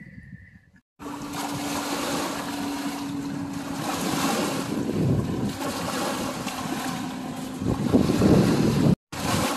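Small waves breaking and washing up on a sandy lakeshore, with wind buffeting the microphone, loudest near the end. A steady low hum runs underneath for most of it.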